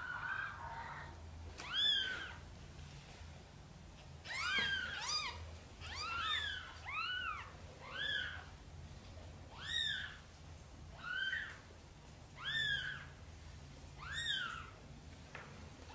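Newborn kittens mewing: about a dozen short, high-pitched cries that each rise and fall, several overlapping in a quick run about four to seven seconds in.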